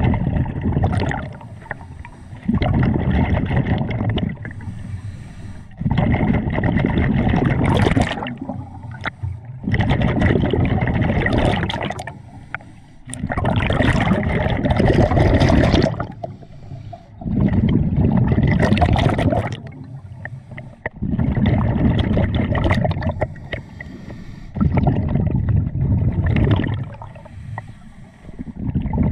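Scuba diver breathing through a regulator underwater, heard from close by: a loud bubbling rush of exhaled bubbles lasting about two seconds, repeating about every three and a half seconds, with quieter gaps for the inhalations between.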